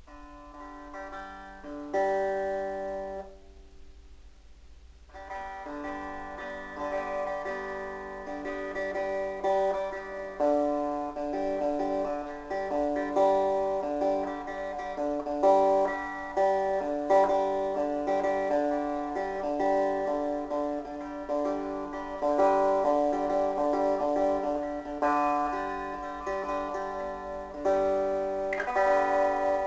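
Six-string neck of a Gibson EDS-1275 double-neck electric guitar played through its humbucker pickups: ringing chords, a short lull about three seconds in, then a steady run of chord changes.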